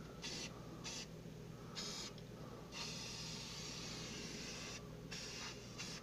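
Krylon ColorMaxx aerosol spray paint hissing out of the can in a series of bursts, short ones at first, then a long spray of about two seconds in the middle and a few short ones near the end, as the paint is laid on thick.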